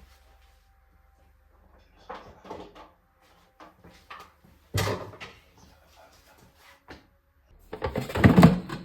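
Knocks and clatter of kitchen things being handled: scattered light knocks, one sharp knock about five seconds in, and a louder run of clattering near the end.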